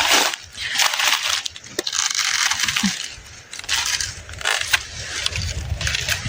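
Footsteps crunching through dry leaves and vegetation, about one step a second.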